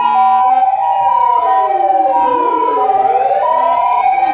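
Ambulance siren: a loud two-tone hi-lo siren switching between two pitches, layered with a wailing siren that slides down to a low point about three seconds in and then rises again.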